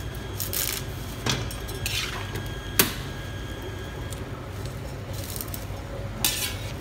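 A spatula tossing and scraping noodles around a wok, with a few short scrapes and clacks; the sharpest clack comes about three seconds in.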